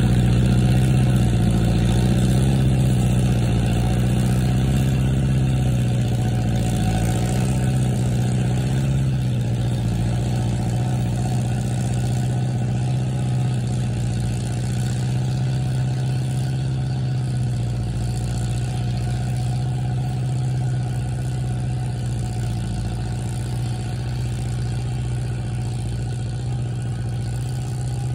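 International 544 tractor's engine running steadily while tilling the garden, slowly fading as the tractor works away across the field.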